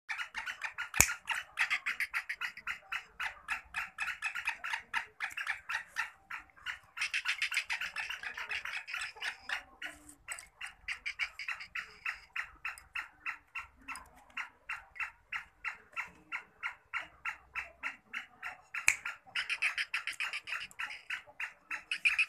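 Caged black francolin (black partridge) giving a long run of short, rapid calls, about five a second, louder in a few stretches. A sharp knock about a second in and another near the end.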